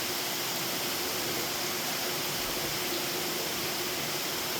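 Steady rain falling, an even hiss with no breaks, over a faint steady hum.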